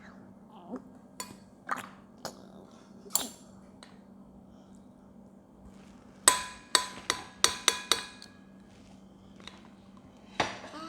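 Utensils clinking against bowls and dishes during a meal: a few scattered taps, then a quick run of about seven sharp, ringing clinks about six seconds in.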